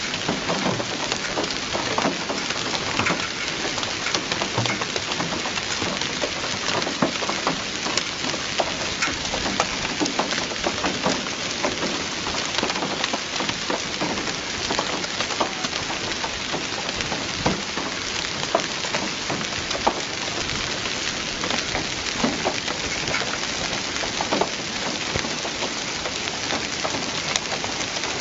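Heavy rain falling onto a flooded paved courtyard: a steady, dense hiss full of small sharp drop impacts and splashes on standing water.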